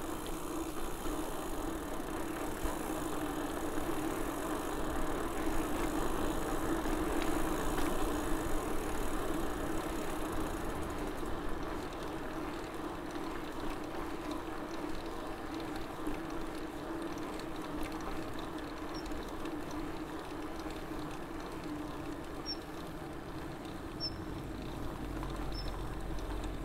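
Steady rolling noise of a BMC mountain bike ridden along a paved street: tyre and drivetrain hum. It swells a little a few seconds in, and a few faint ticks come near the end.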